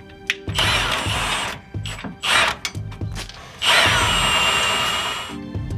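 Milwaukee Fuel cordless impact wrench running in several bursts on the rear control-arm bolts, breaking them loose to remove the arm. The longest burst comes near the end. Background music plays under it.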